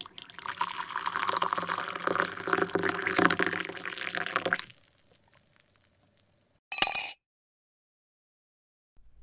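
Sound effect of coffee being poured into a mug, a steady pouring for about four and a half seconds. About seven seconds in comes one short, sharp, bright sound.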